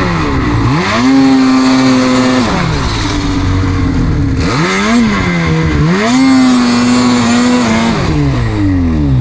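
Snowmobile engine revving hard. It climbs and holds at high revs twice, with quick drops between, then winds down near the end.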